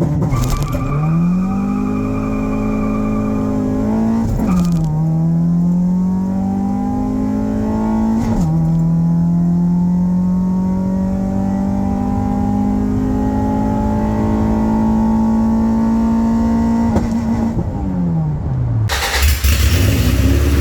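Honda's swapped-in F23A 2.3-litre four-cylinder VTEC engine accelerating through the gears: the engine note climbs, drops suddenly at two upshifts about four and eight seconds in, then climbs slowly for a long stretch. Near the end the revs fall away as it slows, followed by a loud rush of noise.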